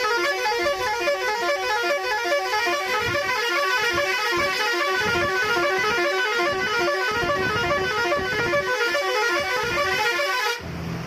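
Multi-tone musical truck horn sounding a rapid, repeating up-and-down run of short notes. It cuts off suddenly about ten and a half seconds in, leaving a low engine rumble.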